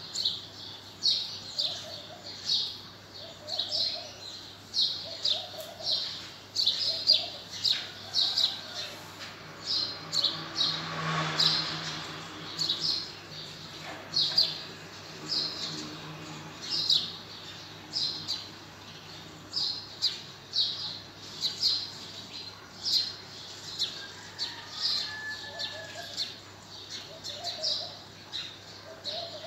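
Birds chirping: short, high calls repeating about twice a second, with lower paired calls in the first and last thirds. A low rumble swells and fades about midway.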